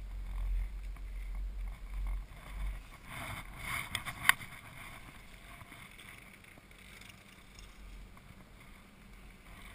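Chairlift ride: a low rumble of wind on the microphone at first, then a rattling clatter ending in one sharp clack about four seconds in as the chair passes a lift tower and its rope rolls over the tower's sheave wheels; after that a quieter steady hiss of the moving lift.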